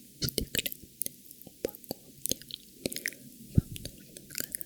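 Close-miked wet mouth sounds: irregular sticky clicks and smacks of lips and tongue, several a second.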